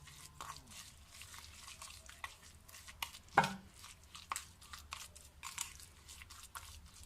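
A spoon stirring finely grated turnip with sugar and honey in a bowl: soft, moist crunching and scraping, with one sharper knock about halfway through.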